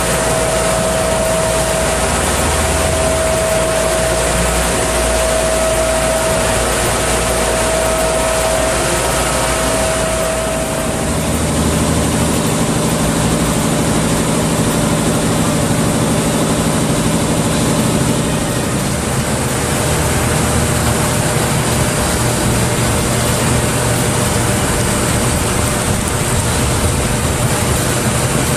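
Wheel blast machine for propane cylinders running: a steady, loud mechanical noise with a hiss, and a steady whine that stops about ten seconds in, where the low hum changes.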